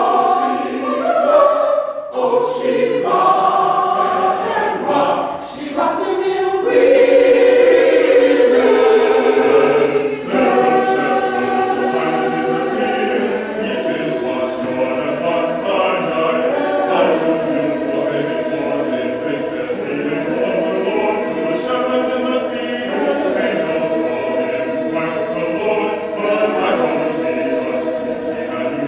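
Mixed church choir singing a setting of the "Hail Mary" in sustained chords, swelling louder for a few seconds about a quarter of the way in.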